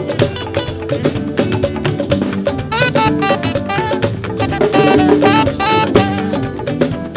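Fuji band music with no singing: drums and hand percussion keep a busy beat, and a stepping melody runs over it.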